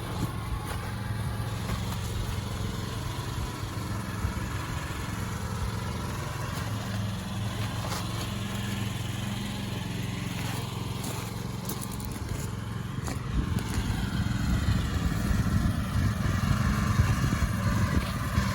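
An engine running steadily with a low, even hum, with a few faint clicks and scrapes over it.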